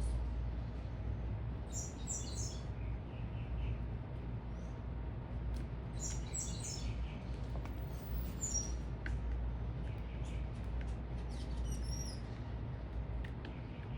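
Small birds chirping in short clusters of quick high notes, four times, over a steady low rumble.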